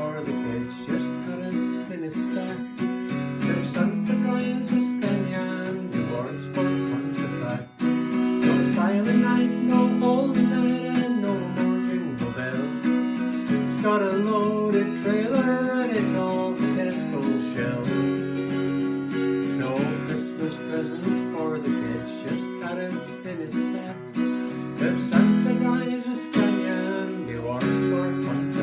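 Music: a song's instrumental passage built on strummed acoustic guitar, with a melody line moving over it.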